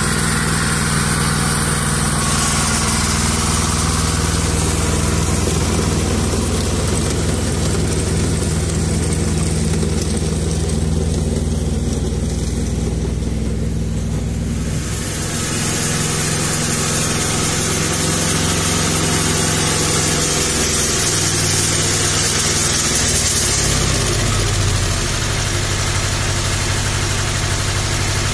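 Ferrari 95RS tractor's Lombardini diesel engine running steadily. Its note shifts about 15 seconds in and falls near the end.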